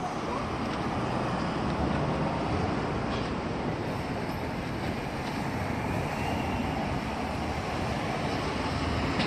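Steady city street traffic noise: a continuous wash of passing cars and engines, with a faint high whine rising in the second half.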